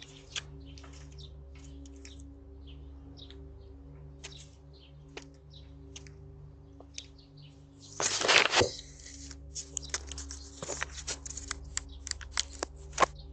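Doorbell camera's microphone carrying a steady low electrical hum and scattered short high chirps. About eight seconds in comes a loud close rustling scrape, then a run of sharp clicks and knocks.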